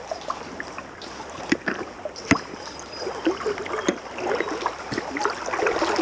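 River water flowing and burbling, with scattered small clicks and taps over it, one sharp click about two seconds in.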